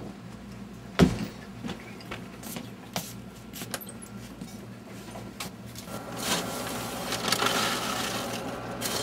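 A sharp knock about a second in and scattered light clicks, then from about six seconds a rustling scrape as a scoop digs through popped popcorn in a popcorn machine, over a low steady hum.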